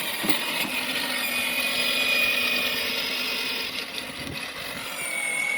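Kids' electric ride-on Cybertruck driving: the steady whine of its dual electric motors and gearboxes over a rough running noise.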